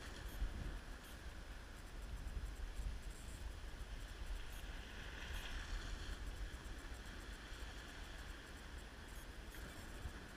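Wind rumbling on the microphone with small waves washing against a rocky shore, the wash swelling about halfway through.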